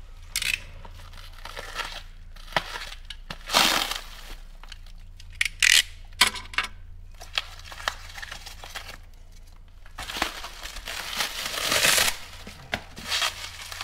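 Plastic bubble-wrap and cardboard packaging being crinkled and pulled off a stainless exhaust pipe, in irregular rustling bursts with a couple of sharp clicks about halfway and a longer rustle about ten seconds in.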